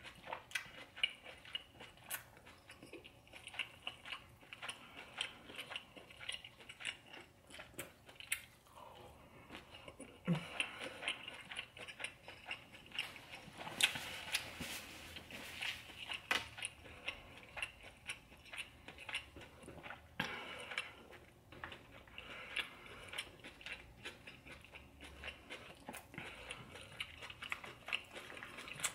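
Chewing and wet mouth smacking while eating seafood boil in butter sauce, a steady run of short smacks and clicks with a busier stretch about halfway through.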